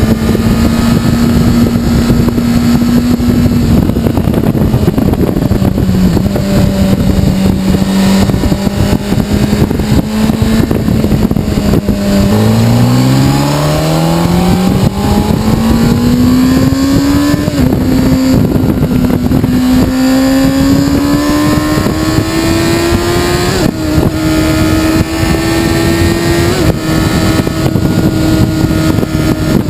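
Honda CBR600RR's inline-four engine heard from the rider's seat over a steady rush of wind. It cruises at a steady pitch at first, then drops gears about twelve seconds in and accelerates hard, the pitch climbing through three quick upshifts.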